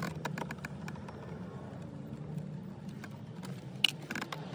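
A steady low hum inside the car, with scattered light clicks from hands and a pry tool working the dashboard's plastic stereo panel, and one sharper click near the end.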